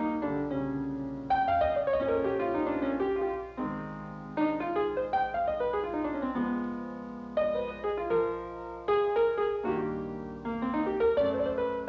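Solo piano playing an instrumental passage: struck notes and chords with flowing runs that descend in pitch.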